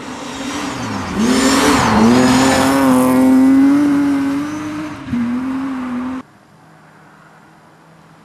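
BMW rally car engine at high revs as the car comes through a snowy corner: the revs climb, dip briefly on a shift and climb again, hold high, and break briefly again near five seconds in. The engine sound cuts off abruptly about six seconds in.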